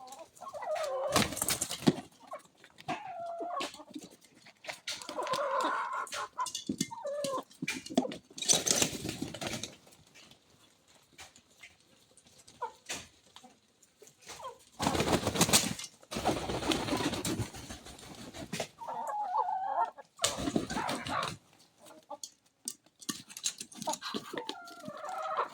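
Chickens clucking as they crowd and squabble over scattered maize grain. Several louder rustling bursts of a second or so break in among the calls.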